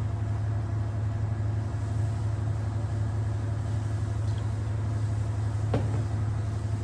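Steady low machine hum, with a brief small sound about six seconds in.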